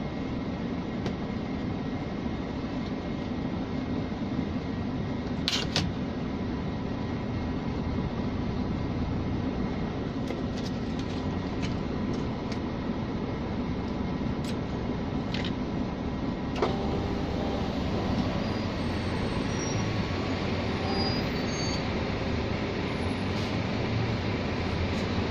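Scania G460 truck's 13-litre inline-six diesel running at low speed, heard from inside the cab as a steady low rumble while the truck creeps forward. A short hiss comes about five seconds in, and a sharp click about two-thirds of the way through.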